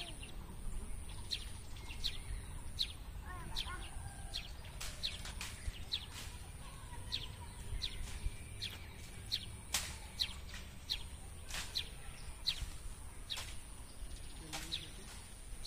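Small birds chirping: many short, high, downward-sliding chirps, roughly one every half second to a second, over a steady thin high-pitched whine and a low rumble.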